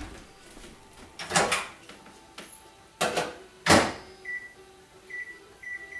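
A few loud knocks and clunks, then a microwave oven's keypad beeping: several short high beeps as it is set to reheat food.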